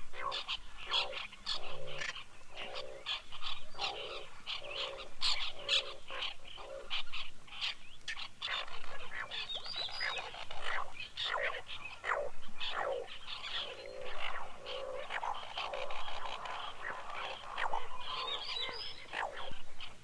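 Asian dowitcher calling repeatedly in a field recording, short calls packed close together with a louder burst about every second and a half.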